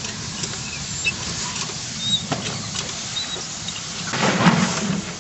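A large fire crackling and popping over a steady outdoor hiss, with a louder surge of noise about four seconds in.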